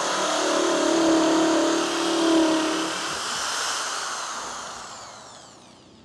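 A 30 mm holesaw in a corded electric drill cutting through 12 mm plywood. About three seconds in the cutting noise stops and the drill motor winds down with a falling whine.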